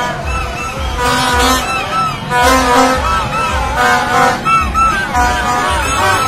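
Plastic trumpet horns tooting at several pitches at once, some held steady and some wavering up and down, over a steady low beat of about two a second.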